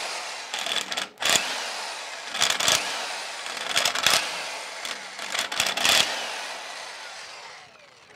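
Corded electric impact wrench hammering in about five short bursts as it loosens the cylinder head bolts of a Copeland K-model compressor. Each burst is a loud rattle, and the sound fades away slowly after it.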